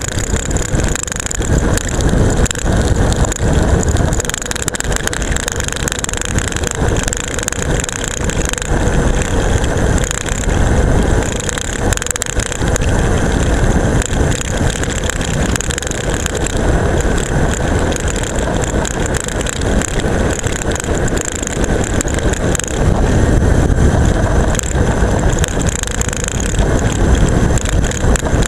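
Continuous rattling of a camera strapped to a road bike's seatpost, shaken by the road surface on a fast descent, over a steady rush of wind on the microphone.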